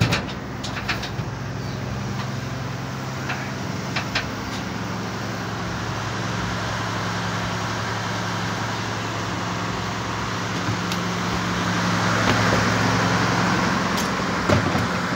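A steady low engine hum under outdoor street noise, with a few sharp clicks in the first few seconds and the hum changing pitch near the end.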